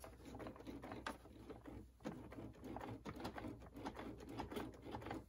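Faint handling noise from the RC truck: small clicks and soft rubbing as hands move over its plastic body and the rubber spare tires.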